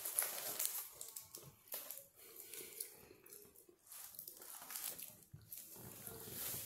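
Faint eating sounds: chewing, with small tearing and crinkling as a shawarma wrap is picked apart by hand.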